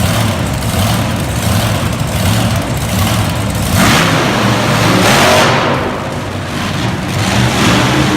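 Monster truck engine running loud and revving, surging to its loudest about four seconds in and easing off again around six seconds.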